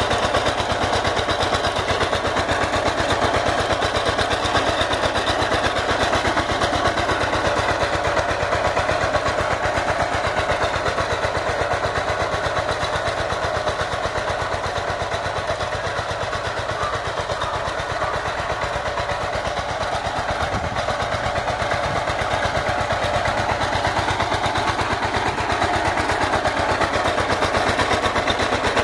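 Walk-behind power tiller's engine running steadily under load as it pulls a ridging plough through the soil, with a fast, even firing beat. It dips slightly in loudness midway and picks up again near the end.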